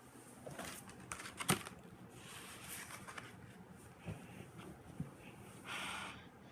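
Faint handling noises in a small room: soft rustling with a few light clicks, the clearest about one and a half seconds in.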